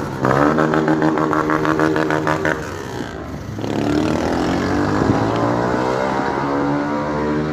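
Motorcycle engine revving: held at high revs, dropping away about two and a half seconds in, then climbing again and holding.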